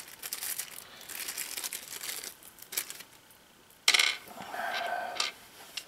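Hands handling electrical wires and small fittings at the box: scattered light clicks and rustling, then a sharp clink about four seconds in followed by a brief rustle.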